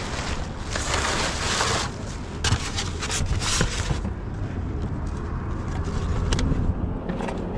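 Outdoor background noise: a steady low rumble, with stretches of hiss in the first four seconds.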